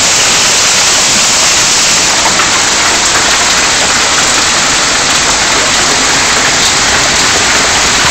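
Hailstorm with heavy rain pelting down on shrubs, lawn and street: a loud, steady, dense hiss with faint ticks of hailstones.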